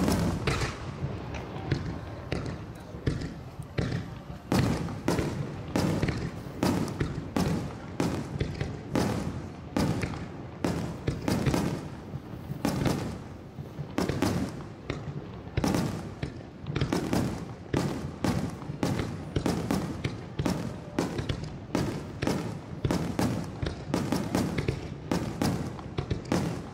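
Fireworks shells bursting in a continuous barrage, sharp booms following one another at about two a second with short echoing tails.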